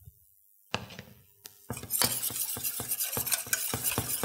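A utensil stirring béchamel sauce in a stainless-steel saucepan, knocking and scraping against the pot in quick strokes about four a second. A couple of single clinks come first.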